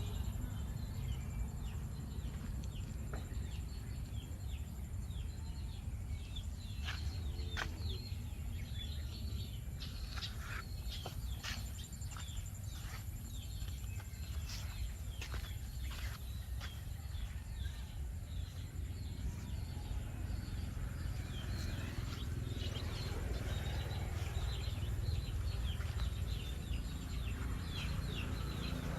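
Birds chirping in many short, high calls throughout, over a steady low rumble, with a scatter of sharp clicks through the middle.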